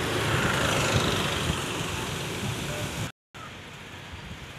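Steady outdoor background noise with distant road traffic, which drops out for a moment about three seconds in and returns noticeably quieter.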